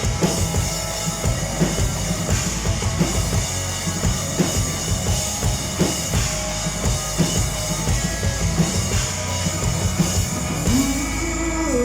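Live rock band playing, a drum kit hammering out a steady beat under sustained instruments; near the end a held note slides upward.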